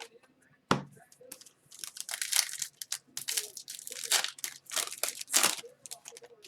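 Foil wrapper of a hockey card pack being torn open and crinkled, in several scratchy bursts over a few seconds. A single sharp knock comes just before, about a second in.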